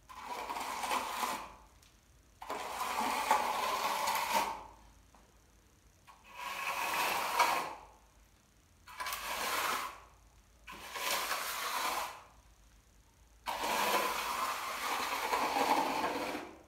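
Hand trowel scraping across a freshly poured cement floor in six long smoothing strokes, each one to three seconds, with short pauses between: the surface being floated flat.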